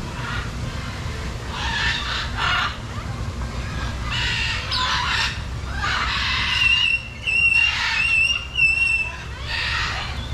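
Macaws squawking over and over in harsh screeches, with a few pitched, whistled notes about two-thirds of the way in, over a steady low rumble.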